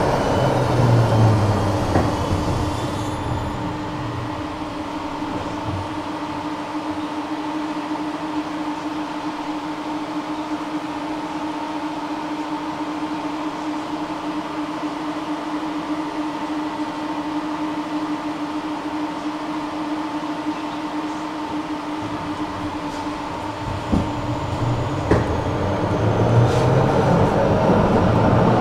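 Electric tram: running rumble fading after the first few seconds, then a long steady hum at an even pitch, as when the tram stands still. Two clicks come shortly before the end, and the running rumble builds again as it pulls away.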